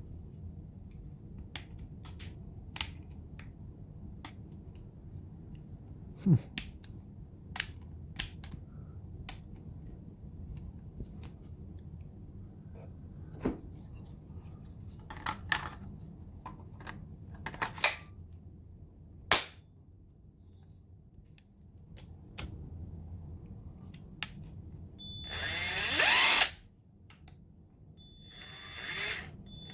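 Clicks and taps of a cordless impact wrench being handled, then near the end the Craftsman V20 impact wrench's brushed motor run free twice in short bursts, each spinning up with a rising whine.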